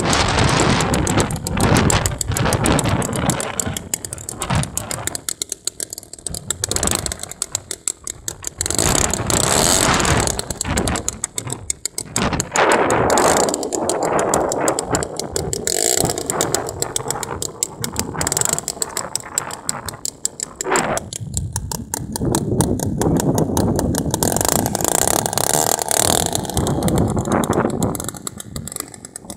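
50cc gasoline engine of a large RC model airplane running with a rapid, even firing rhythm. Its loudness rises and falls several times and drops off near the end.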